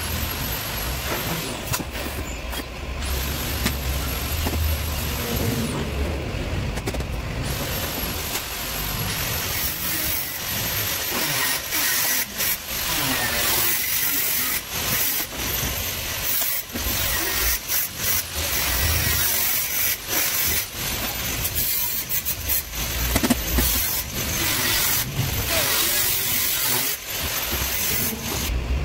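Steady workshop background noise with a run of sharp clicks and knocks from hand tools at a metal bench, including a cordless drill and a hand riveter.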